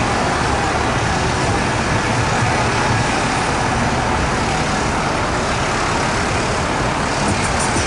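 Steady road traffic noise from cars and buses on a wide multi-lane street, with no single vehicle standing out.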